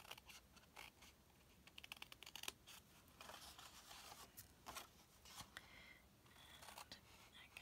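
A few quiet scissor snips cutting short slits up the score lines of a sheet of patterned paper, with light paper handling between the cuts.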